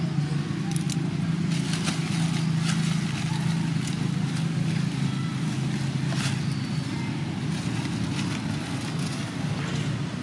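Steady low rumble throughout, with scattered light crackles and ticks on top.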